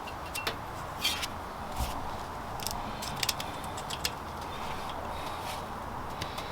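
Scattered light clicks and taps of tools and engine parts being handled, over a steady background hiss.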